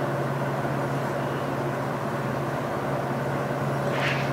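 A steady low machine hum, as from a motor or fan running in the shop, with a short rustle and a few light clicks near the end as the vise and papers are handled.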